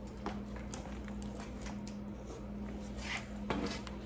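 Soft rustling and scattered light clicks of a tennis-ball package being handled and opened, over a steady low hum.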